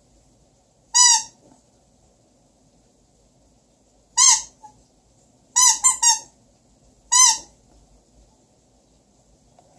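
Squeaky toy squeaked six times: once, again about three seconds later, then a quick run of three, and once more near the end. Each squeak is short and high-pitched.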